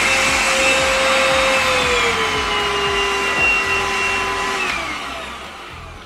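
Vytronix cordless stick vacuum running on carpet with a steady motor whine; its pitch drops a step about two seconds in, and near the end the motor is switched off and winds down.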